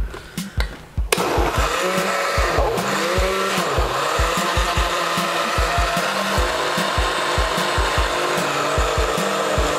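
Countertop blender switched on about a second in, its motor running steadily while it churns a jar of frozen crushed pineapple, with irregular low thumps throughout.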